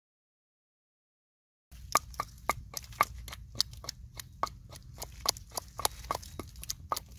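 Silence for under two seconds, then a rapid, uneven run of sharp clicks and taps, about three to four a second, over a low rumble.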